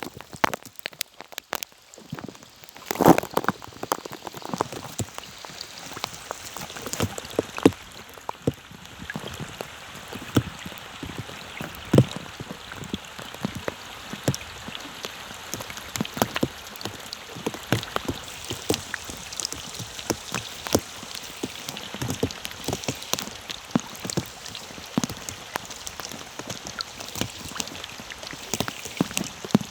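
Rain falling on open water: a constant hiss of drops with many separate plinks and splashes. It is sparser for the first two seconds, with a burst of louder splashes about three seconds in.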